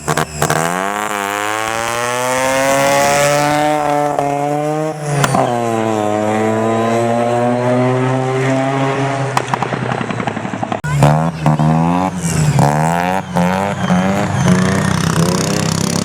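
Single-rotor Mazda rotary engine on a racing lawn mower under hard acceleration, its pitch climbing steadily. It drops sharply about five seconds in, climbs again, then settles lower and uneven from about eleven seconds on.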